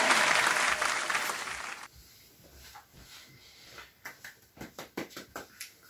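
Crowd applause that fades and cuts off about two seconds in, followed by a few faint scattered taps.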